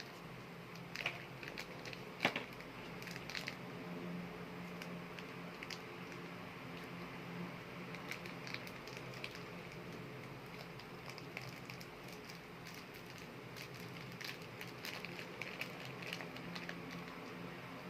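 Soft air-dry clay being squeezed and worked by hand: small, irregular sticky crackles and clicks, with two sharper clicks in the first few seconds, over a steady low hum.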